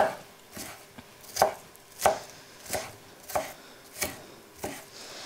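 Kitchen knife chopping an onion on a wooden cutting board, about seven sharp, evenly spaced strokes at a steady, unhurried pace.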